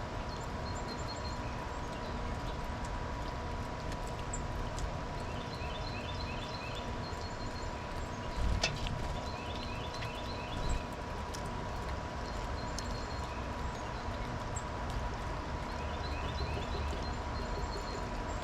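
Small birds chirping in quick little runs of high notes, three times, over a steady low background rumble. A faint steady tone runs throughout, and there is a single sharp knock about halfway.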